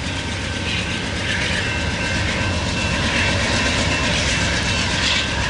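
Loaded coal train rolling past behind BNSF diesel locomotives: a steady rumble of engines and rail cars on the track.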